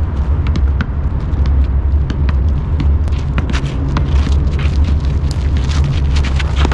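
Steady low rumble of wind on the microphone, with many sharp taps from a basketball being dribbled and players' sneakers moving on the hard court.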